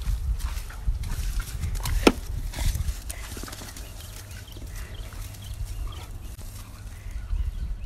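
Two dogs tugging and dragging a branch through dry grass: scuffling and rustling, with a sharp crack about two seconds in and a low rumble throughout.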